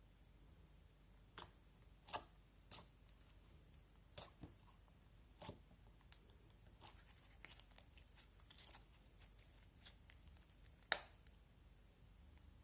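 Slime being handled: scattered small sticky pops and clicks at irregular intervals, with one louder pop near the end.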